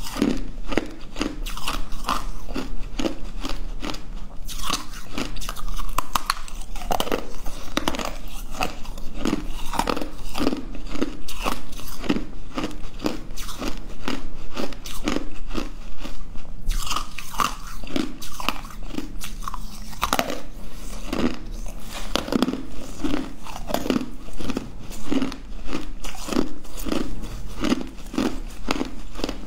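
Blue-coloured ice being bitten and chewed close to the microphone: continuous, irregular crunching and crackling as the pieces break between the teeth.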